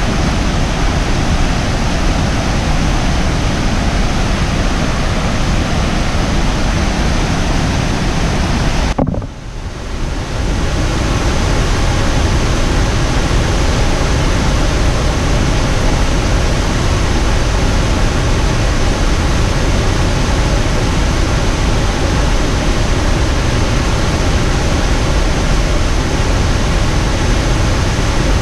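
Waterfall heard close up: a loud, steady rush of falling water, dipping briefly about nine seconds in before coming back.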